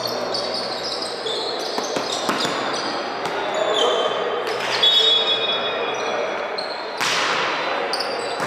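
Volleyball play in a large echoing hall: a few sharp ball hits and short high squeaks of shoes on the court, over steady voices and crowd chatter. The loudest hit comes near the end.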